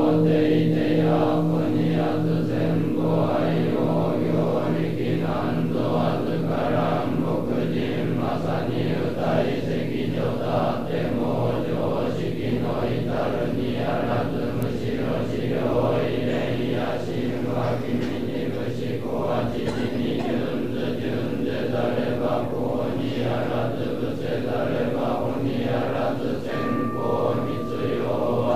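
A large group of Sōtō Zen monks chanting a sutra in unison, a dense low drone of voices moving in a steady syllable rhythm. A brief high steady tone sounds near the end.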